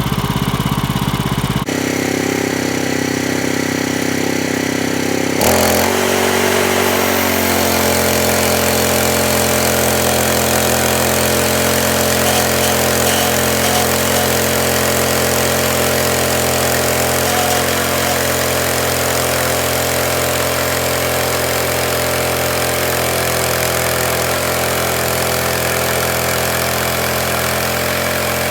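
An engine running steadily at a constant speed. Its pitch shifts abruptly about two seconds in and again about five and a half seconds in, then holds steady.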